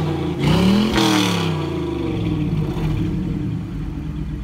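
Box-body Chevrolet's engine revved once, climbing to a peak about a second in, then falling back and settling to a steady idle.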